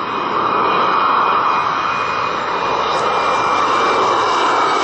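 Twin-engine regional jet (Embraer E-Jet) on final approach with gear down, its turbofans giving a steady jet roar with a high fan whine on top. The roar builds over the first second as the jet nears, and the whine sinks slightly in pitch toward the end.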